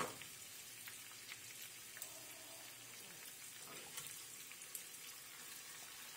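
Baby carrots and runner beans sizzling in butter in a frying pan: a faint, steady hiss, with a few light clicks and taps of a slotted spatula in the pan.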